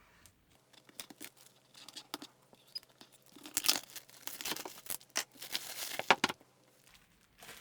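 Wrapping being torn and crumpled off a product box: irregular crinkling and tearing, heaviest in the middle and stopping a little over a second before the end.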